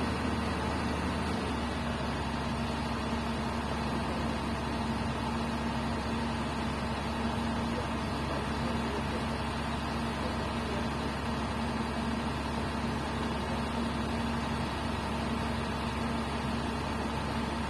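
Komatsu PC200 excavator's diesel engine running steadily.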